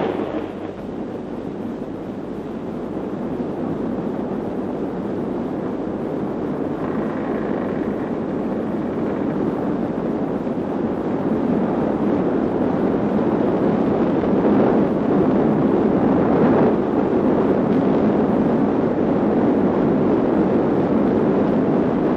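Continuous rumbling roar of an underwater atomic bomb blast on an old newsreel soundtrack, a dense noise that slowly grows louder over the first dozen seconds and then holds.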